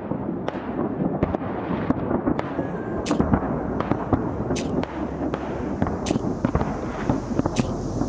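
Fireworks display: many sharp bangs at irregular intervals over a continuous rumble of shells bursting.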